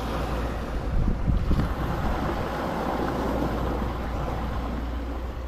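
Wind buffeting the microphone with a steady low rumble, over choppy seawater splashing at the shore.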